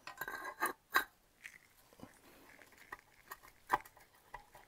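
Gloved hands setting a cylinder liner into a Reliant engine block: scattered light clicks and scrapes, with a sharper knock about a second in.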